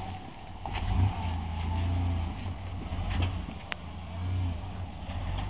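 Ford Explorer's engine running under load as the SUV crawls up a rough dirt track, swelling in surges, with a sharp click about three and a half seconds in.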